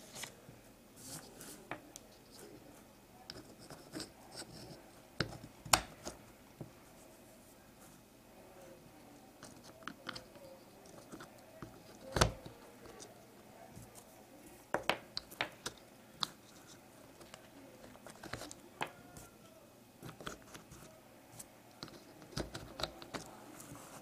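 Scattered small clicks and knocks of puzzle-cube pieces being handled and pressed into a partly taken-apart cube. A few sharper snaps stand out, about six and twelve seconds in.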